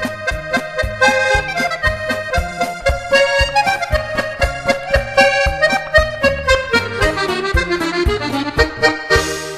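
A lively folk tune played on accordion, with a busy melody over a steady pulse of bass notes at about four a second. A brief hiss comes near the end as the music fades.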